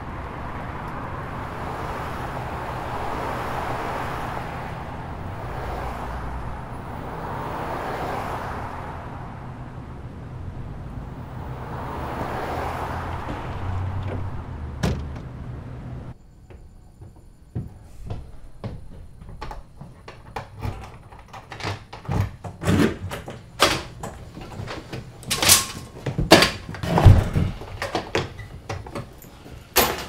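Cars passing on a street, swelling and fading every few seconds over a low hum. About halfway through it cuts to a quiet room with a run of knocks, clicks and door sounds, loudest a few seconds before the end.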